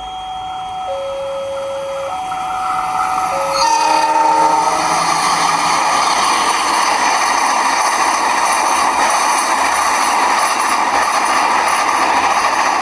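An alternating two-tone electronic warning signal, each tone held about a second. About three and a half seconds in, a CC 206 diesel locomotive's horn sounds a short chord, and the loud, steady rush of the passing train then covers everything.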